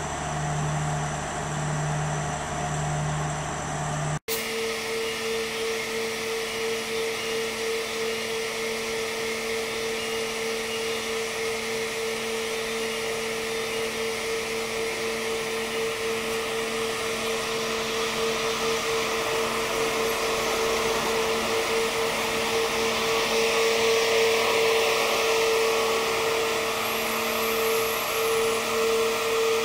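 Diesel-electric locomotive pulling a passenger train past: a steady engine hum with a higher whine, growing louder as the locomotive and coaches go by. The sound breaks off for an instant about four seconds in.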